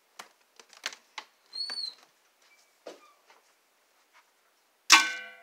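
Footsteps and handling rustles with a short squeak, then about five seconds in a sharp clatter with a brief ringing tail as the container of dry slime is thrown into a plastic wastebasket.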